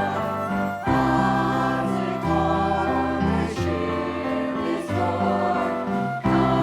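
Congregation and worship band singing a hymn together, voices over sustained instrumental chords that change about once a second.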